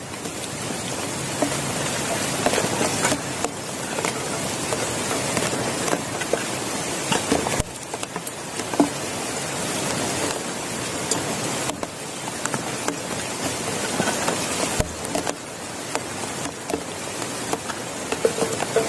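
Heavy rain falling steadily, with many distinct drop hits ticking on a nearby surface.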